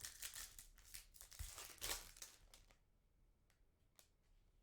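Foil trading-card pack wrapper being torn open and crinkled, a crackly tearing sound for about the first two and a half seconds, followed by a few faint clicks of cards being handled.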